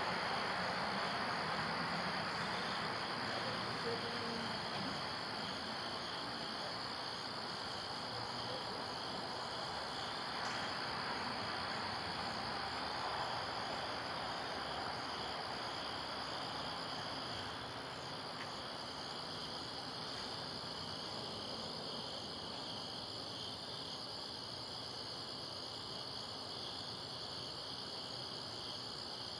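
Crickets chirping in a steady, unbroken high trill over a faint background hiss that drops slightly about two-thirds of the way through.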